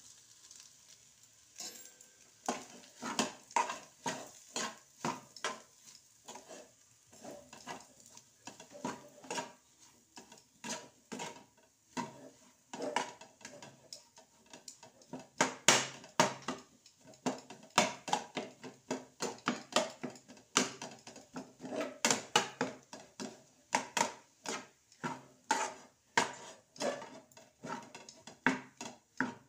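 Steel spatula scraping and clacking against a non-stick frying pan while stir-frying crushed boiled potatoes with spices, in quick repeated strokes a little under two a second, growing louder in the second half.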